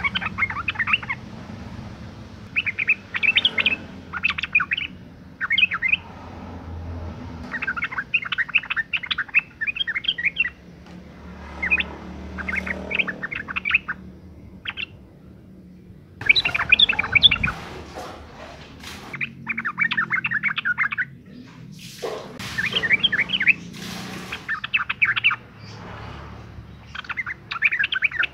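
Female yellow-vented bulbul (trucukan) calling in breeding condition: bursts of quick, bubbly chattering notes, phrases of a second or two repeated with short pauses.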